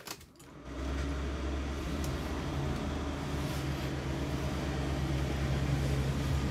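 A few short clicks, then about half a second in a steady low hum starts up in the motorhome's cab as the ignition is switched on, and holds steady.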